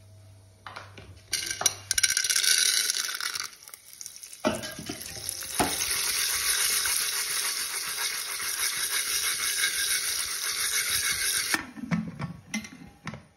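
Hot oil sizzling in an aluminium pressure cooker, first briefly with the turmeric, then steadily for about six seconds after the corn kernels go in. Near the end, metal clatter as the cooker's lid is put on.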